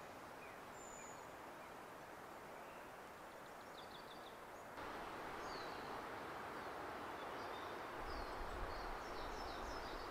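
Quiet woodland ambience: a steady faint hiss with small birds chirping briefly now and then. The hiss steps up slightly about five seconds in.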